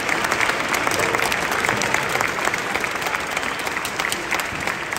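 Football crowd in the stands applauding, a dense patter of many hands clapping at once that eases off slightly toward the end.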